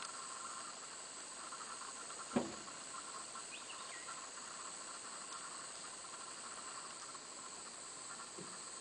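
Steady hiss of insects droning in dry forest, with one short knock about two seconds in and a few faint chirps.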